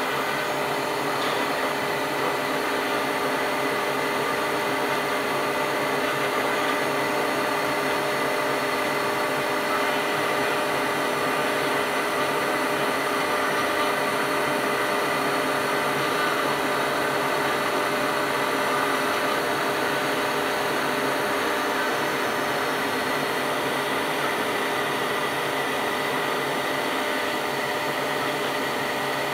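General-Gorilla CNC router spindle running, its bit cutting grooves into a wooden board: a steady whine made of several fixed tones over a hiss, holding an even pitch and level throughout.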